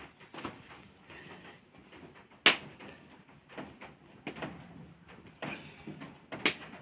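Scattered knocks and clatter, with two loud, sharp knocks, one about two and a half seconds in and one near the end.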